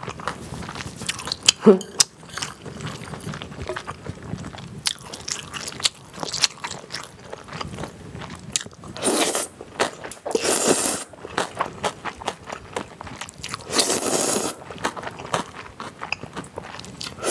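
Close-miked chewing with wet mouth clicks, and loud slurps of cold naengmyeon noodles in chilled broth about nine, ten and fourteen seconds in.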